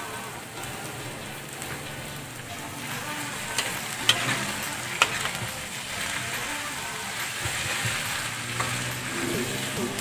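Flaked milkfish meat with chopped onion and carrot sizzling as it is sautéed in a wok, stirred and scraped with a spatula. A few sharp clacks of the spatula against the pan come around the middle.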